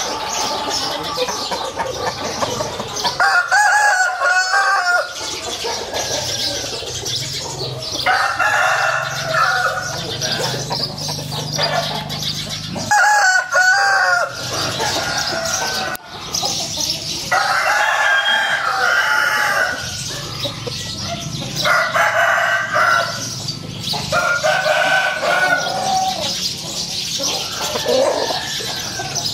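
Fighting roosters crowing again and again: about six long crows, a few seconds apart.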